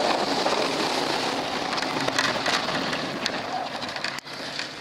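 Snow-plowing pickup truck at work: a steady rushing noise with scattered light ticks and knocks.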